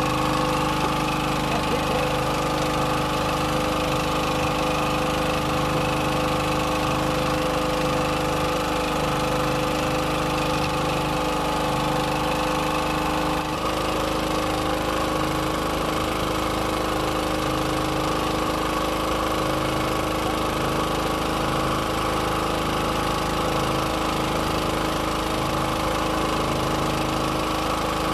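A boat engine running steadily, with an even drone at constant speed.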